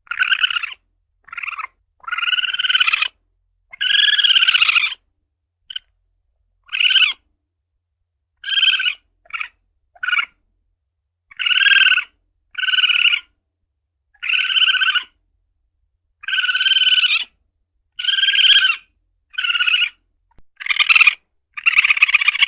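A civet (luwak) calling: a series of short, high-pitched calls, each half a second to a second long, repeated about once a second with brief silent gaps.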